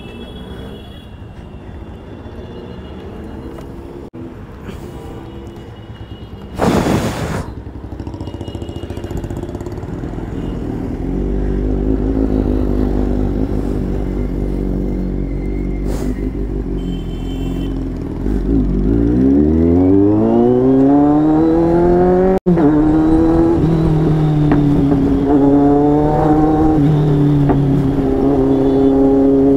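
Kawasaki Z800 inline-four with an aftermarket exhaust, heard from the rider's seat: running low in traffic, then one long pull with the engine note rising steeply, settling into a steady cruise whose pitch rises and falls a little. A brief loud burst of noise comes about seven seconds in.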